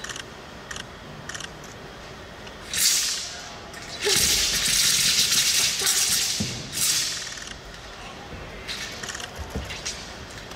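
Wushu broadsword swung in fast sweeps, whooshing through the air, with a long continuous swishing stretch about four seconds in. A few dull thuds of feet landing on the competition carpet come near the middle and end.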